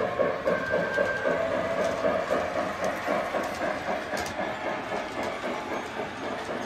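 Three-rail O-gauge toy steam train running around the track: a fast, even clatter of wheels on the rails, growing a little quieter toward the end.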